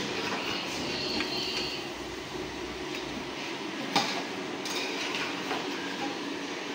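A metal ladle stirring and scraping in a steel cooking pot, with a sharp clink of metal on metal about four seconds in, over a steady hiss.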